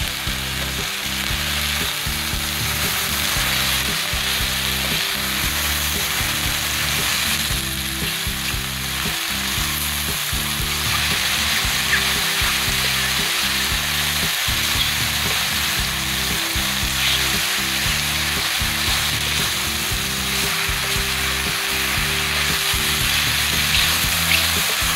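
Oyster mushrooms and garlic sizzling steadily as they fry in olive oil in a pan, with a few faint ticks along the way.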